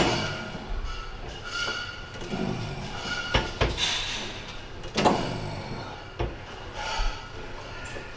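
A weight-stack gym leg machine in use: its plates and frame knock and clank several times, with heavy breathing between the knocks.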